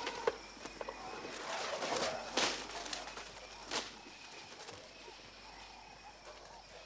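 African elephant chewing on a bark-stripped branch, the wood cracking sharply three times in the first four seconds, with birds calling faintly in the background.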